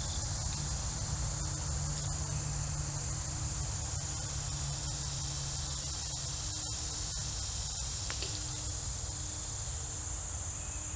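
A steady, high-pitched chorus of insects, unbroken throughout, with a low, even rumble underneath.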